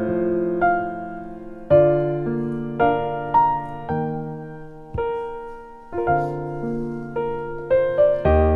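Background piano music: slow notes and chords struck about once a second, each dying away.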